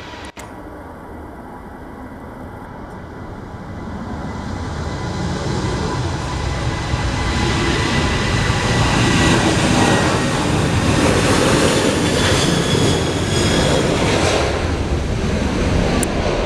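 Jet airliner approaching, its engine roar building steadily over several seconds and then staying loud, with a thin high engine whine that slowly drops in pitch.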